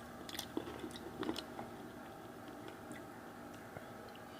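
Faint sharp clicks and small cracks of crab shell being broken open and picked at while eating, a few in the first second and a half, then only faint scattered ticks.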